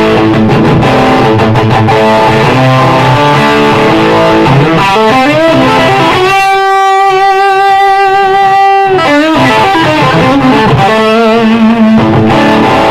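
Electric guitar played through the Expandora prototype distortion pedal, riffing with thick distorted chords and notes. About six seconds in, one note is held for nearly three seconds with a wide vibrato, and more wavering notes follow.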